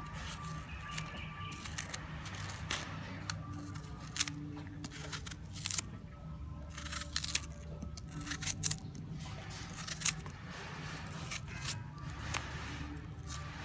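Long fingernails tapping and scratching on an apple's skin: irregular sharp clicks and scrapes over a steady low hum.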